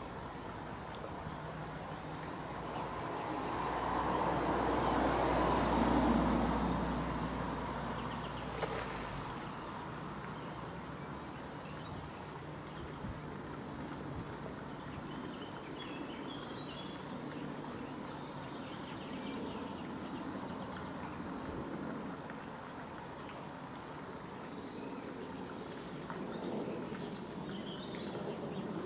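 Outdoor ambience with small birds chirping in short high notes, and a low rumble that swells about four to six seconds in and fades away by about nine seconds in.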